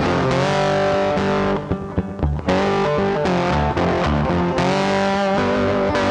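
Rock music led by a distorted electric guitar, dropping back briefly about two seconds in.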